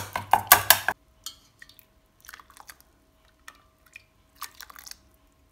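A steel ladle clinks and scrapes against a stainless-steel pot while mashing a boiled tomato in dal water for rasam, with wet squishing. The sound stops abruptly about a second in, leaving only a few faint ticks.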